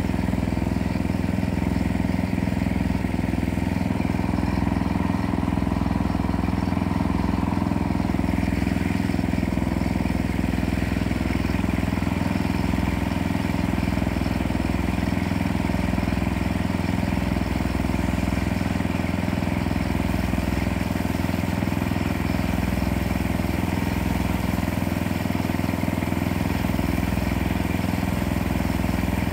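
Small gasoline engine running steadily, with a constant low hum and no change in speed.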